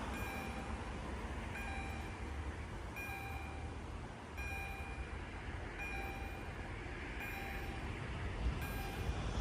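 Electronic level-crossing warning bell giving a short ringing chime, repeated evenly a little under once a second, over a steady low rumble.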